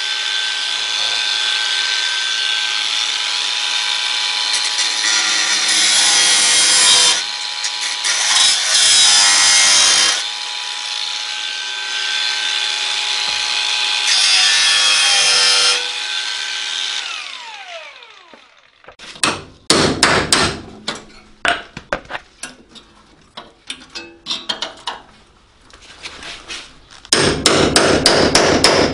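An 18V cordless angle grinder with a cutting disc runs with a steady whine while cutting rusty sheet-steel sill, loudest in three surges. The motor winds down about two-thirds of the way in. Irregular hammer blows on a chisel against the metal follow, with a quick run of strikes near the end.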